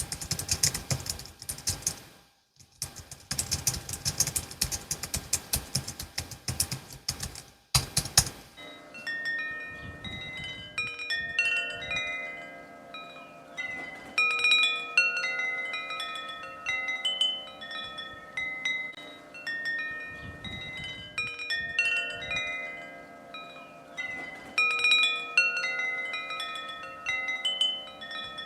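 Rapid typing on a Logitech MX Keys S low-profile keyboard, with a brief pause, for about the first eight seconds. Then tinkling wind chimes take over, with many overlapping bell-like notes ringing at different pitches.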